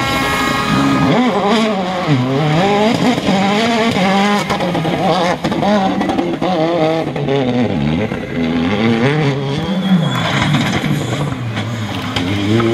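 Citroën DS3 rally cars' turbocharged four-cylinder engines driven hard through a tight bend. The pitch falls as they brake and shift down, then climbs again and again as they accelerate through the gears, with a few sharp cracks.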